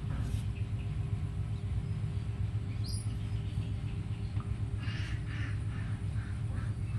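Short high-pitched animal chirps and squeaks: one brief gliding chirp about three seconds in, then a quick run of short squeaks from about five seconds on, over a steady low rumble.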